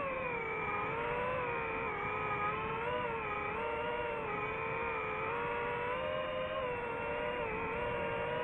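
DJI FPV drone's motors and propellers whining in flight, the pitch wavering up and down continually as the throttle changes.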